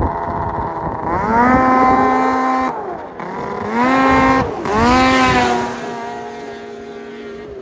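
Snowmobile engine revving hard three times. Each time its pitch climbs and holds, then drops between runs. After the third run it settles lower and fades.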